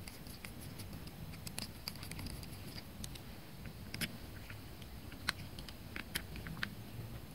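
Scattered small clicks and light scrapes of a screwdriver turning small screws into the primer-bulb retainer on a hedge-clipper carburetor, a few sharper clicks about four, five and six seconds in, over a low steady background hum.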